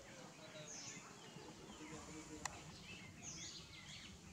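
Faint forest ambience with a bird calling twice, each call a high note that drops steeply in pitch. A single sharp click comes about halfway between the two calls.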